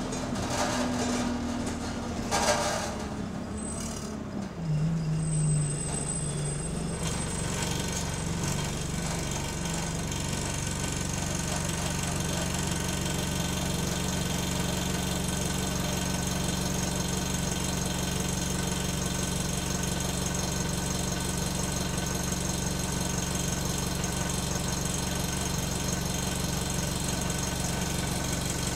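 Bus diesel engine running down as the bus slows to a stop, with a brief high-pitched brake squeal about five seconds in. It then idles steadily.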